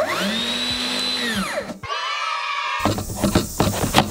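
Festool TSC 55 cordless track saw motor triggered with no cut: it spins up with a rising whine, holds for about a second, and winds down. A brief burst of higher whirring follows, then several clicks and knocks as the saw is handled.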